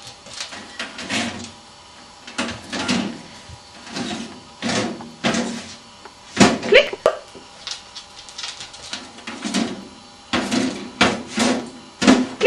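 A dog nosing open and pushing shut the drawers of a plastic desk drawer unit: a string of irregular plastic knocks and sliding scrapes.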